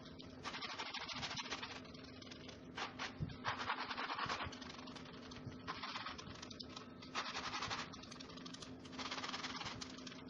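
Kitchen sponge rubbing over freshly painted decorative brick, wiping back the wet paint, in about five spells of back-and-forth scrubbing strokes.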